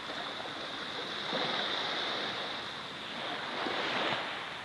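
Ocean surf washing on the shore: a steady hiss of waves that swells about a second and a half in and again near four seconds.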